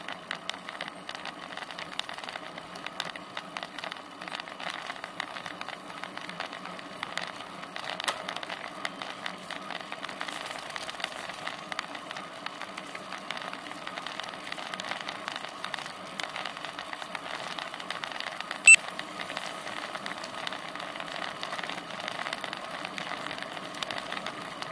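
Road bike riding along on tarmac, heard through a frame-mounted Cycliq camera: a steady hum of tyres and wind, with constant fine rattling from road vibration through the mount. A single short, sharp, loud tone cuts in once, a little past two-thirds of the way through.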